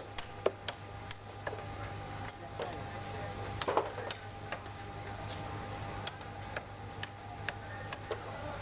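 Ayer catfish being cut on a fixed upright boti blade over a wooden block: irregular sharp clicks and knocks as the blade goes through the fish and pieces are set down on the block and steel trays. A steady low hum runs underneath.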